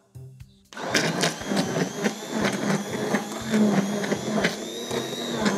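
Handheld immersion blender starting up about a second in and running steadily in a pot, puréeing asparagus cream soup; its high whine rises slightly near the end.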